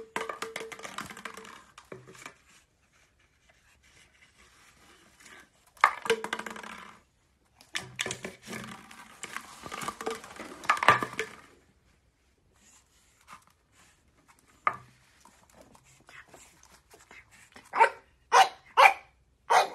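Pug puppy playing with an empty plastic bottle: irregular bursts of crackling and scuffling as the bottle is batted about the floor, then three short, sharp yaps close together near the end.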